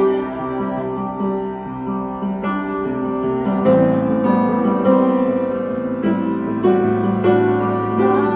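Instrumental worship music with no singing: sustained chords on keyboard, the notes changing every second or so, with the bass shifting lower about halfway through.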